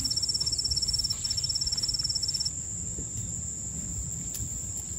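Insects trilling: a rapid, high pulsed chirping that stops about halfway through, over a steady, even higher continuous insect drone.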